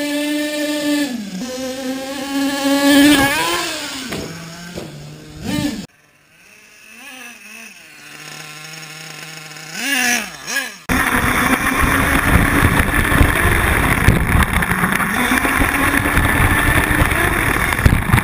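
Exceed Madstorm 1/8-scale nitro RC car's .28 two-stroke glow engine revving up and down for the first several seconds. It cuts abruptly to a fainter engine sound, and about eleven seconds in jumps suddenly to a loud, steady engine drone with a lot of rushing noise.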